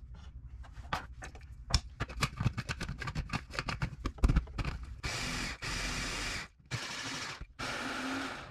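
Plastic clicks and knocks as the lid and motor unit of an electric hand-blender chopper attachment are fitted, then the motor runs in four short pulses of about a second each, chopping onion, garlic, ginger and red chilli in the bowl.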